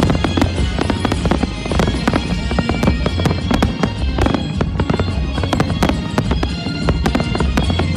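Fireworks bursting and crackling in rapid, dense succession, with music playing underneath.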